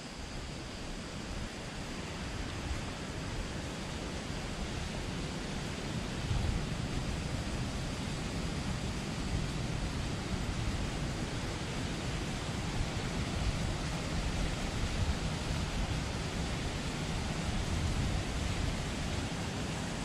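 Steady rush of flowing river water below the path, growing louder about six seconds in.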